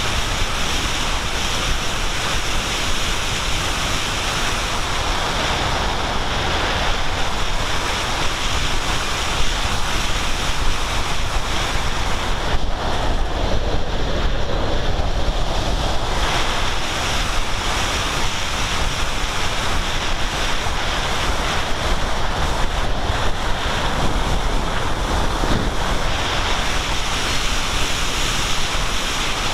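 Steady rush of wind buffeting the microphone of a camera carried on a Sky Climber aircraft in flight.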